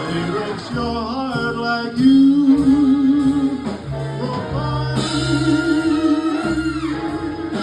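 Male voice singing a ballad with a live band of guitar and bass, holding two long notes with vibrato.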